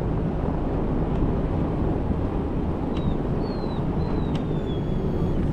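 Steady rumble and rushing noise of a vehicle driving, with a few faint high whines that fall in pitch in the second half.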